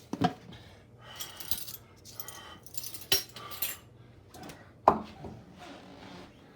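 Kitchen clatter of utensils and dishes: several sharp clinks and knocks, the loudest about five seconds in, with short rasping bursts between them.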